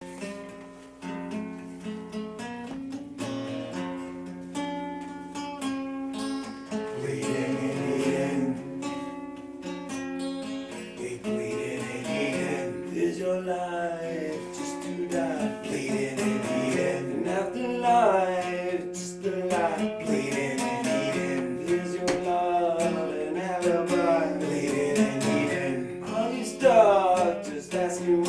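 Acoustic guitar playing a steady run of picked and strummed notes. From about eleven seconds in, a voice sings over it with sliding, wavering pitch.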